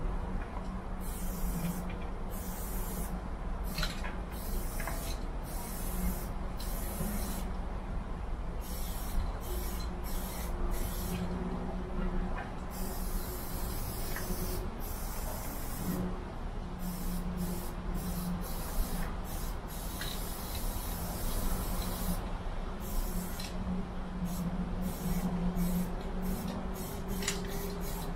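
Aerosol spray paint can hissing in repeated bursts as paint is laid on, each burst lasting from a fraction of a second to about two seconds, with quicker short bursts near the end. A low steady hum runs underneath.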